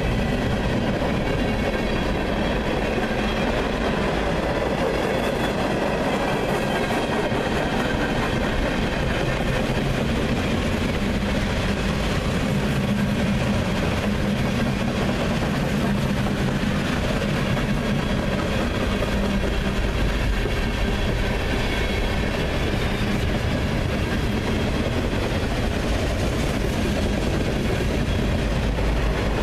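CSX freight train rolling steadily past, its wheels running on the rails with a continuous, even noise.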